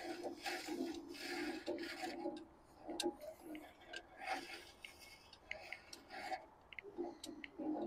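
Benford dumper's diesel engine being turned over slowly by hand with a wrench on the crankshaft nut: irregular rubbing, scraping strokes with light clicks, and a slight grinding that the owner puts down to the flywheel touching something. The engine turns with no resistance, which the owner fears means it has no compression.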